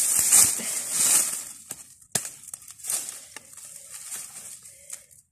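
Dry leaves and grass rustling and crackling as hands handle a bunch of saba bananas on the ground, loud at first and then as scattered crackles, with one sharp snap about two seconds in.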